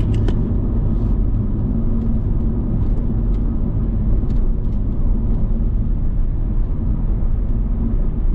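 Steady low rumble of a vehicle driving on the road, with a few faint light ticks and rattles.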